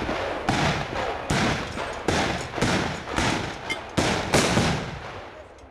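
Black-powder arquebuses firing in a ragged running volley, about eight shots in quick succession, each with a long rolling echo. The firing dies away near the end.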